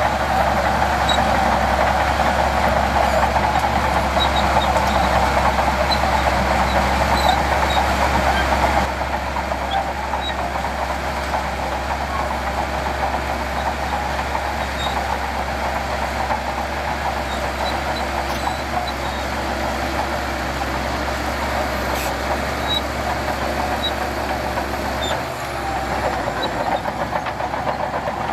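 Heavy diesel earthmoving machinery running steadily, its engine noise dropping a step about nine seconds in.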